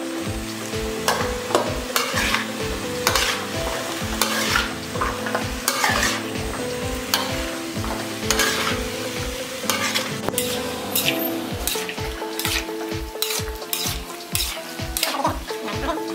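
Metal ladle scraping and turning pumpkin, onion and chicken strips in a metal wok as they stir-fry and sizzle, with a scrape about once or twice a second.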